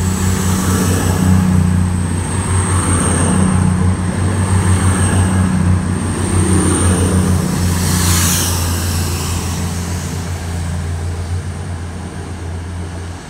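Class 222 Meridian diesel multiple unit pulling out of the platform, its underfloor diesel engines giving a steady low drone that fades gradually over the last few seconds as the train moves away.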